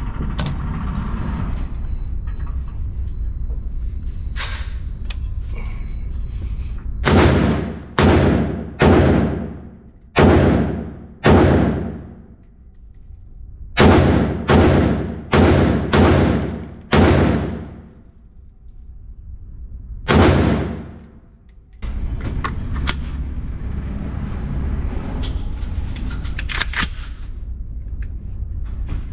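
Short-barrelled CZ BREN 2 MS 5.56 rifle firing single shots at an indoor range: five quick shots, a short pause, five more, then one last shot, each crack followed by a long echoing tail in the booth.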